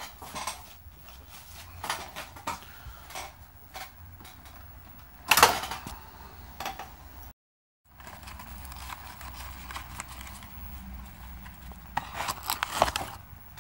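Clicks and clatter of tools and parts being handled at a workbench, with one loud sharp knock about five seconds in. The sound drops out completely for about half a second partway through, and near the end a cardboard vacuum-tube box is handled with a quick run of clicks and taps.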